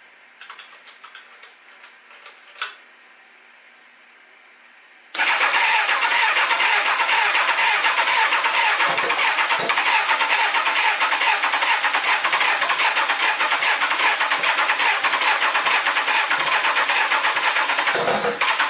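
Turbocharged Kawasaki ZX-6R inline-four engine being started for the first time: after a few faint clicks, a loud engine sound sets in suddenly about five seconds in and carries on steadily, dipping briefly near the end.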